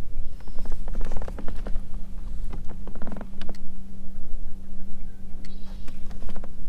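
Wind rumbling on the microphone, with bunches of light clicks and taps from handling about a second in and again near three seconds. A low steady hum sets in about two seconds in.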